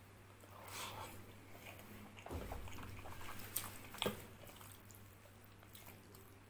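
Close-miked eating by hand: fingers squishing and mixing rice with chickpea and mutton curry, along with chewing. Two sharp clicks come a little past the middle.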